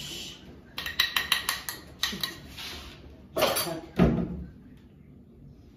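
A spoon clinking against a mixing bowl, about six quick taps about a second in, then a scrape and a dull thump, as spoonfuls of ingredients go into dough.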